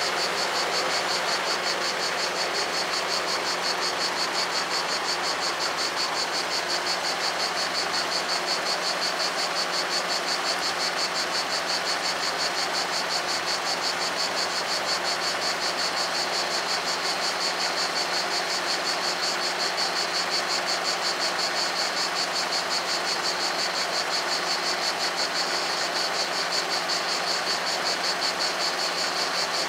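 Italian level-crossing bells ringing in a rapid, even, continuous ring: the warning that the crossing is closed and the barriers are down for a train.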